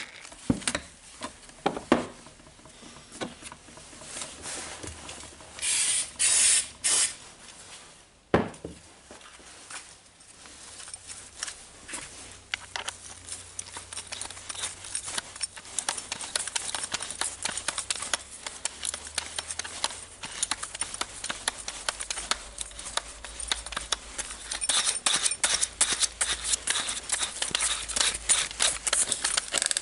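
Keyless chuck and metal parts of a DeWalt DCD796 brushless drill being handled and turned by hand while the chuck is threaded back onto the spindle: rapid small clicks and rattles that grow denser through the second half. Three short noisy bursts come about six seconds in, and a single knock about eight seconds in.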